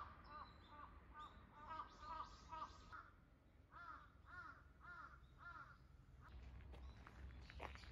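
Crows cawing, faint: a quick run of caws, then after a short pause a slower run of about five caws. A few faint taps near the end.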